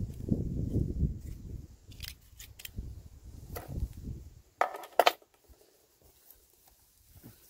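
Metal clicks and clinks from tools and parts being handled while a rusted submersible pump is worked on, with two sharp knocks about five seconds in, then quiet.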